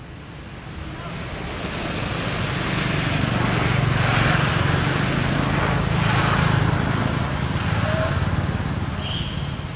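A motor vehicle passing by: a low engine hum and rushing noise that swells to a peak mid-way and fades off again.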